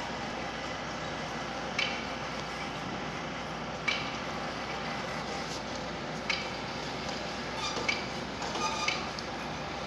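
Construction-site noise: a steady machinery drone, broken every two seconds or so by sharp ringing metal clinks, which come closer together near the end, while concrete is poured from a crane-hung steel concrete bucket.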